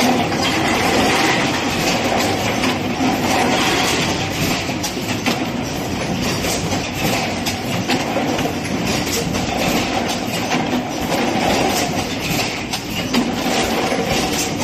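Fully automatic PET bottle blowing machine running: a steady mechanical clatter of rapid clicks and knocks over a continuous noisy hum.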